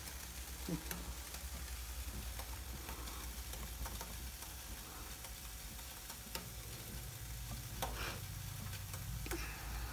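Wire whisk beating thin besan (gram-flour) batter in a glass bowl: a steady wet swishing, with now and then a light click of the whisk against the glass.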